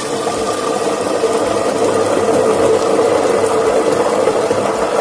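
Wet dried sweet peppers frying in hot oil in a pot under a glass lid: loud, dense sizzling with a steady hum underneath, growing louder through the first second or so.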